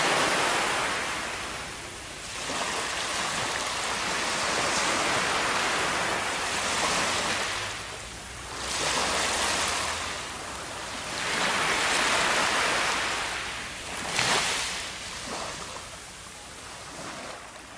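Small waves washing up a sandy beach and running back, the surf swelling and fading every few seconds.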